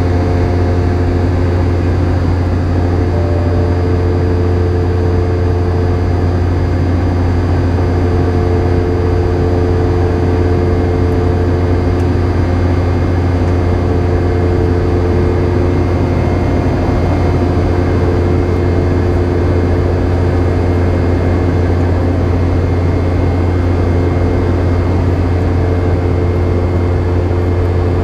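Inside the cabin of a Boeing 717 in flight, seated beside its rear-mounted Rolls-Royce BR715 turbofans: a steady loud engine drone, mostly a deep hum, with a few steady tones above it, one of which fades in and out.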